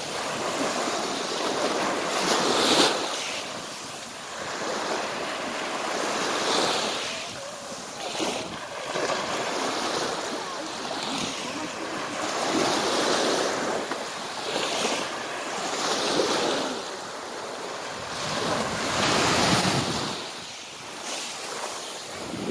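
Small waves breaking and washing up a pebble beach, the surf swelling and fading every few seconds.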